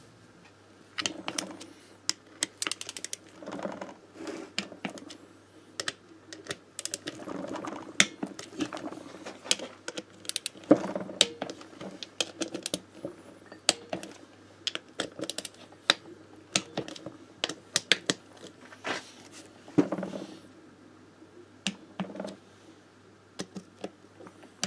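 Irregular clicks and light metallic clatter of hand tools and small engine parts being handled during reassembly of an AM6 moped engine, around the water pump housing.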